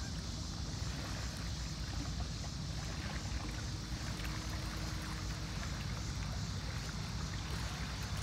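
Small waves lapping against a rocky riverbank over a steady low rumble and an even high hiss, with a few small ticks.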